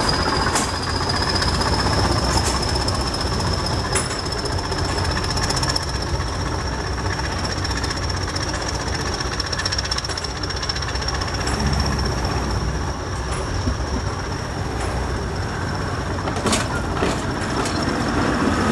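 Departing train rolling away, its steel wheels squealing in one steady high tone over a low rumble, with a few sharp metallic clanks.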